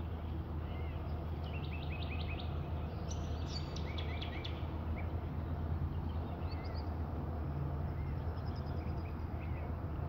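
Small birds chirping: a quick run of short chirps about a second and a half in, a cluster of higher notes around three to four seconds, then scattered single chirps, over a steady low rumble.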